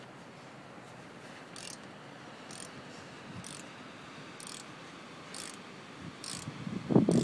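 Ratchet wrench clicking in short bursts about once a second as a brake caliper bolt is worked loose. Louder knocks come near the end.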